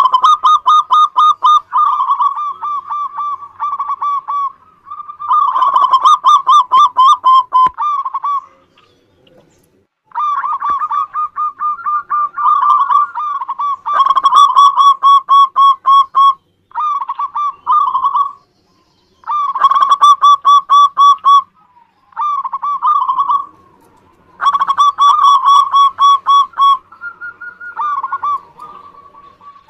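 Zebra dove (perkutut) cooing: about eight phrases of rapid, trilled coo notes at a steady pitch, separated by short pauses, with a longer pause around nine seconds in.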